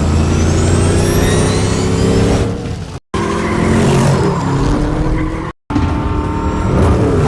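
Batmobile engine sound effects: a car engine running and revving in three short clips separated by two brief cuts to silence, with a high whine that rises and falls about a second in.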